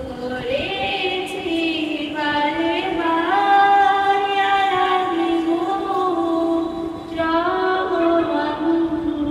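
A young woman singing an Islamic song solo and unaccompanied into a handheld microphone, with long held notes that slide between pitches.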